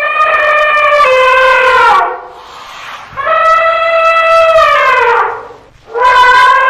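Elephant trumpeting: a series of long, loud, brassy trumpet calls, each about two seconds and sliding down in pitch as it ends, with a short gap between calls.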